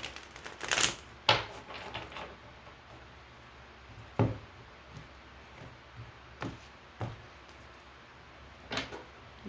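Tarot cards being handled: a handful of separate short snaps and taps of card stock, the loudest two in the first second and a half, with a few more spread through the rest.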